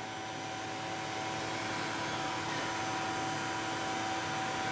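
Steady hum and hiss of a Miller Dynasty 350 TIG welding setup running while an AC arc burns on aluminum pipe, with a few faint steady tones and no sudden sounds.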